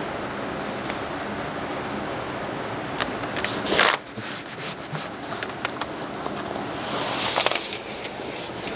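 Self-adhesive flashing membrane being pressed and rubbed by hand onto the sheathing around a window opening: rustling and scraping over a steady hiss, with a loud crinkle about four seconds in and another about seven seconds in.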